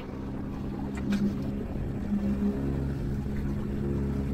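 Fishing boat's engine running at a steady pitch, with the wash of the sea around the hull.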